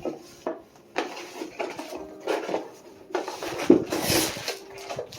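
Handling of a Swiffer duster kit: clicks and knocks of the plastic handle and parts with rustling of the packaging, and a louder crinkle about four seconds in.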